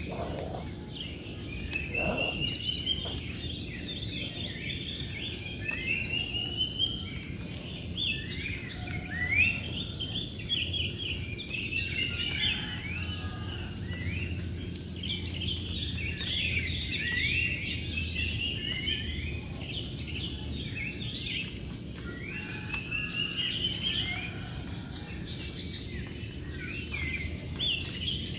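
Wild birds chirping and singing: a busy mix of short chirps and quick rising phrases from several birds, over a steady high drone of insects and a low steady rumble.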